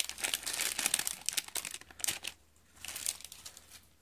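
Lunch wrap paper crinkling as it is peeled off a candle: dense crackling for about two seconds, then a shorter, quieter bout about three seconds in.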